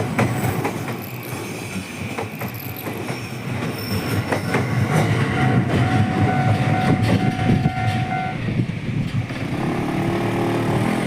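JR Yokosuka Line electric train passing close by, its wheels clacking over the rail joints, with a steady high tone held for about three seconds midway.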